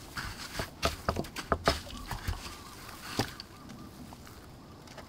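Hands scooping and tossing dry breadcrumbs in a stainless steel bowl: crumbs rustling and pattering onto the metal, with a number of sharp taps. It dies down after about three seconds.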